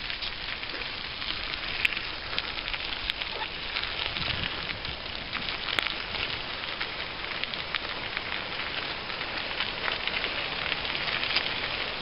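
Bicycle tyres rolling over a gravel trail: a steady hiss full of fine crackling, with a few sharper clicks from loose stones.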